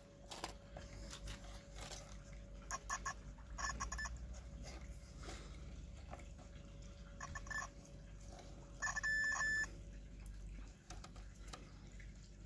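Digital multimeter's continuity beeper testing the turnout's screw-repaired rail contact: a few short broken chirps, then one steady high beep of just under a second about nine seconds in, signalling a closed circuit.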